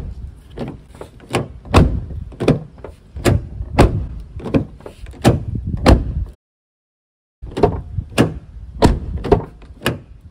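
A closed truck door worked back and forth by its outside handle, knocking against its latch striker about twice a second. The knocking cuts out completely for about a second past the middle, then starts again.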